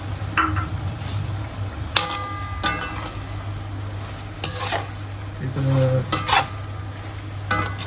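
A cooking utensil stirring long beans into a pan of sambal godok in coconut-milk gravy. It scrapes and knocks against the pan several times with short metallic rings, over a steady low hum.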